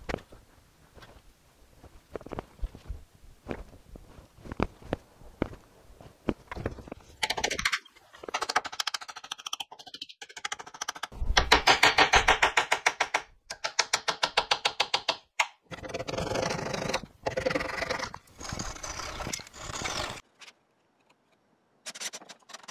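Hand work on a wooden chair frame: scattered light taps and clicks, then about twelve seconds of fast, evenly repeated scraping strokes in several runs with short pauses.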